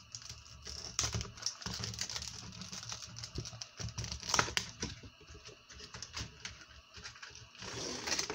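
Package of metal fishing spoons being handled and opened by hand: a run of small, irregular clicks and rustles, with a denser crinkling rustle near the end.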